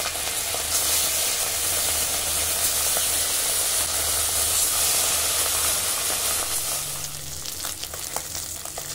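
Bata fish frying in hot mustard oil in a metal kadai: a steady, loud sizzle. About seven seconds in the sizzle drops lower and a metal spatula clicks and scrapes against the pan.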